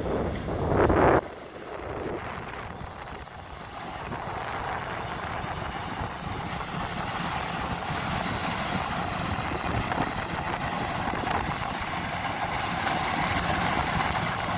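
Wind buffeting the microphone for about the first second, then cutting off. After that comes the steady running of a Kubota DC-93 combine harvester, slowly getting louder.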